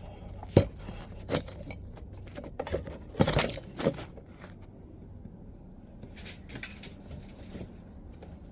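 A series of sharp clinks and knocks of hard pieces striking each other, loudest about half a second in and in a cluster about three to four seconds in, then lighter scattered clicks near the end.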